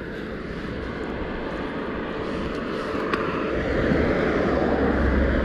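Steady engine rumble that slowly grows louder, with a deep low hum building toward the end.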